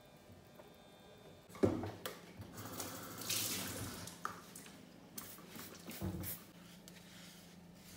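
Kitchen clean-up sounds: a sharp clunk about a second and a half in, then a couple of seconds of hissing liquid with scattered knocks, and another clunk near the end.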